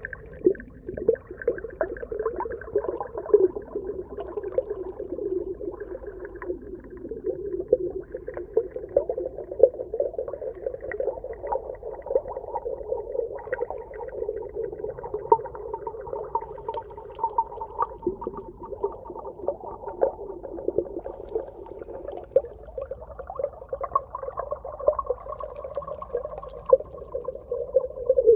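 Underwater ambience: a steady muffled churning sound, centred low in pitch, with many small clicks and pops scattered through it.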